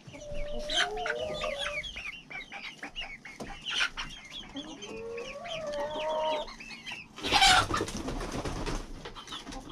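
Chickens being handled: a constant stream of short, high chirping peeps, with a chicken's drawn-out, wavering complaining call twice. A short, loud scuffling burst comes about seven seconds in.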